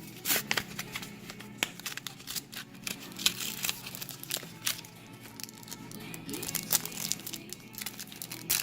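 A foil Yu-Gi-Oh! booster pack wrapper being torn open and crinkled in the hands, with many sharp crackles throughout. Soft background music runs underneath.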